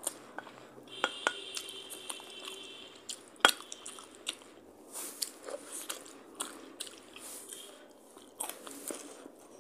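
Close-miked chewing of a mouthful of rice and curry, with wet mouth noises, some crunching and many small clicks, while fingers mix rice on a steel plate. One sharp click about three and a half seconds in is the loudest sound, and a faint high tone hangs in the background for a couple of seconds near the start.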